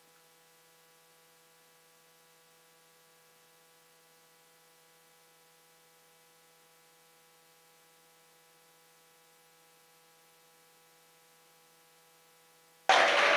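Near silence with a faint steady electrical hum made of several even tones. Near the end, loud room noise cuts in suddenly.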